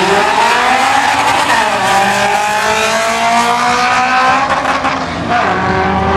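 Drag car's engine accelerating hard down the strip. Its pitch climbs through the gears, dropping back at upshifts about a second and a half in and again about five seconds in.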